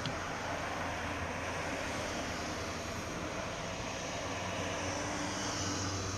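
A steady rush of distant engine noise with a low hum, easing off near the end. A faint high insect trill sets in near the end.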